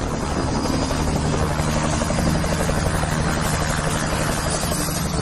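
Volvo semi-truck tractor's diesel engine running steadily as the truck drives and turns, a continuous low throb.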